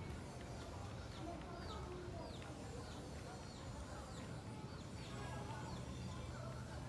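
A bird calling over and over, each call a short high note sliding downward, about one and a half a second, over a steady low background hum.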